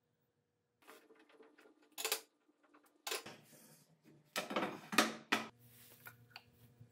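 Bar clamps clinking and a wooden board knocking and sliding on a steel table-saw top as the clamped glue-up is taken apart and handled, with the loudest scraping clatter about four to five seconds in. A low steady hum begins near the end.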